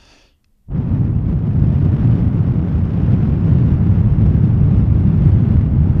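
Breath blown steadily straight into the grille of a Behringer XM8500 dynamic cardioid microphone with its foam windscreen off, giving loud, low wind buffeting on the capsule. It starts just under a second in and goes on for about six seconds.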